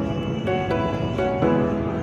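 Background music: a melody of short, changing notes.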